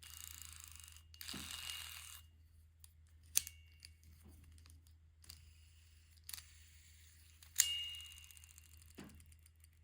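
Multi-function fidget desk toy being worked by hand: a scraping slide for about two seconds, then scattered light clicks and two sharp clicks that ring briefly, about three and a half and seven and a half seconds in.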